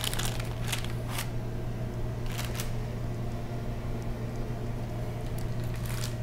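A few soft rustles of baking parchment as a thin sponge cake layer is handled and set down, over a steady low hum.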